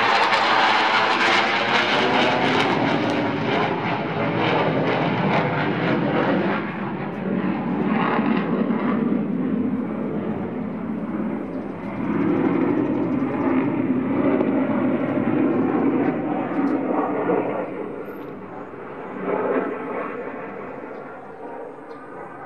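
Military fighter jet flying past overhead: a loud, continuous jet roar. It loses its hiss after several seconds, swells again midway, then fades into a duller, fainter rumble as the jet draws away.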